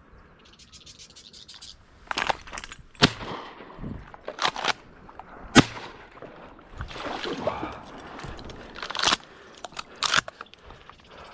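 Shotgun fired twice, about two and a half seconds apart, among rustling reeds and the clatter of the gun being handled.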